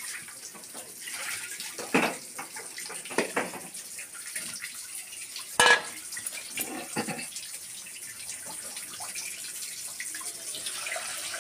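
Water running and splashing into a metal bowl of small raw prawns as they are washed, with a few sharp knocks against the bowl, the loudest a little past halfway.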